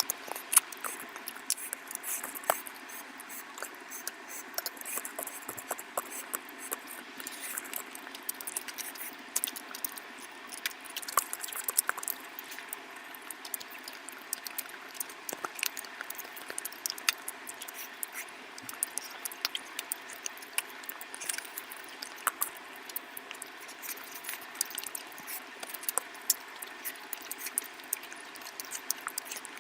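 Close-miked eating of curry: irregular wet clicks and smacks of chewing over a steady hiss.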